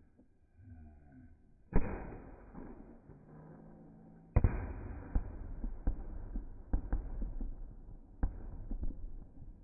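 Slowed-down recording of fireworks exploding: two sharp bangs, about 2 and 4½ seconds in, each trailing off into noise, then a scatter of smaller cracks.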